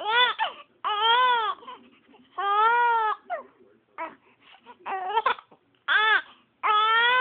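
Baby crying in a string of short wails, about six, each rising and then falling in pitch, with brief gaps between them and a few shorter, weaker sounds in the middle.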